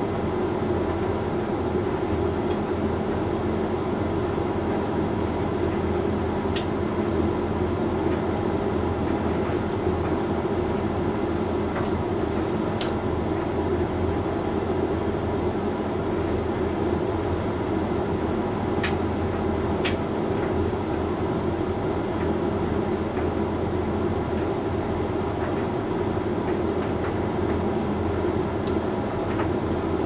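Hoover Link X Care HLX C10DRGR condenser tumble dryer running steadily mid-cycle, a constant hum with a few sharp clicks scattered through.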